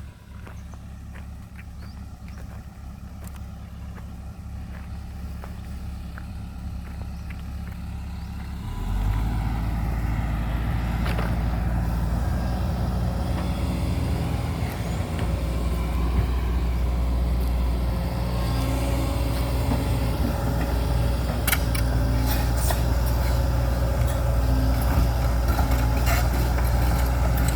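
Backhoe's diesel engine running, growing louder over the first nine seconds and then running loud and close, with scattered metallic clanks near the end.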